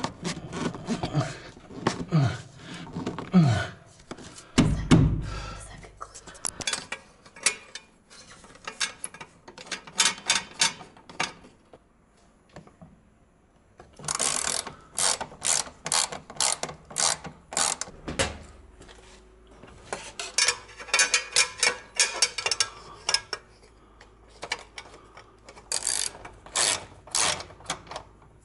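Ratchet wrench clicking in quick runs, tightening the nuts on metal pipe straps that clamp a PVC pipe to steel strut channel. A few knocks and one heavy thump come in the first five seconds.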